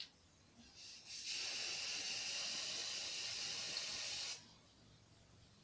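Aerosol spray paint can spraying black paint onto a boot: a brief short puff just under a second in, then one steady hiss lasting about three seconds that cuts off near the end.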